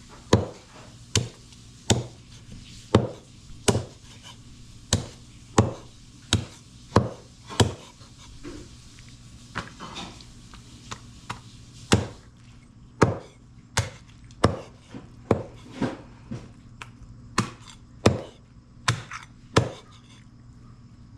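Raw chicken being chopped into pieces with a knife, sharp strokes about one a second. The strokes grow fainter and fewer for a few seconds in the middle, then come back strongly.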